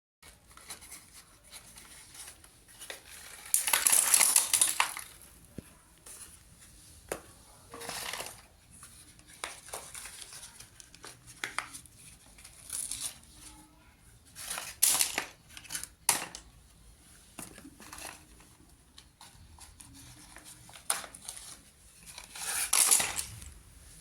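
Slate pencils being bitten and crunched, in irregular crunches: a long loud crunch about four seconds in, scattered smaller ones after, and another loud one near the end.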